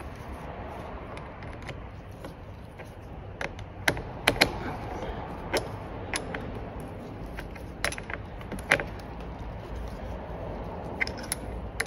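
Irregular metallic clicks and clinks, with a cluster of sharper ones about four seconds in and more scattered after, as a hand tool tightens the positive cable clamp onto a car battery terminal.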